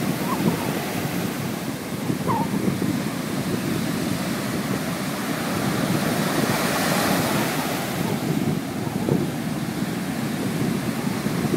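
Ocean surf breaking and washing up a sandy beach: a continuous rush of waves and foam that swells a little midway.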